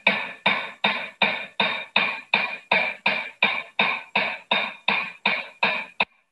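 Hand hammer striking a red-hot steel rivet on a steel frame, heading it over in a steady run of about three ringing blows a second. The blows stop just before the end.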